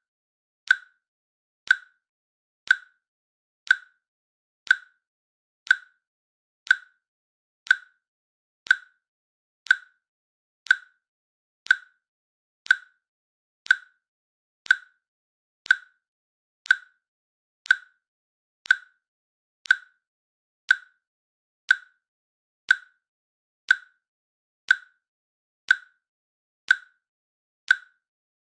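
Countdown timer click sound effect: one short, sharp click each second, evenly spaced.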